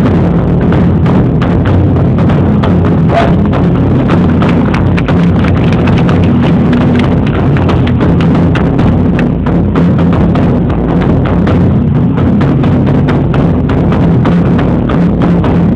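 Drum ensemble playing large drums on stage: a loud, dense run of rapid strikes over a steady low rumble.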